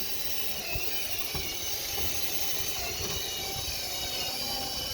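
Cordless drill running steadily, spinning a rotary dryer-vent cleaning brush through a clogged duct: a continuous motor whine over a rushing noise.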